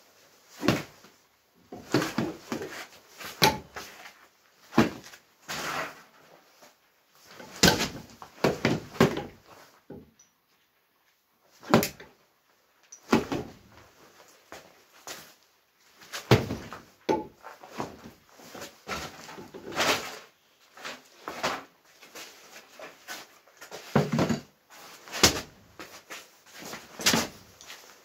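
Punches landing on a hanging heavy punching bag: sharp thuds in irregular bunches of several blows, with short pauses between.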